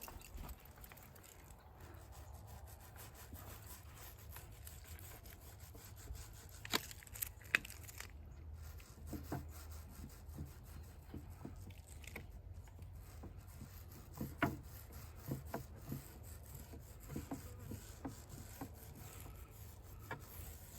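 Faint rubbing with scattered light taps and clicks as fiberglass resin is worked onto a drum shell, over a low steady hum.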